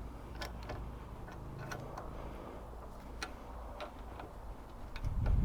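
Scattered light clicks and taps at an uneven pace over a steady low rumble, with a louder low muffled thump near the end.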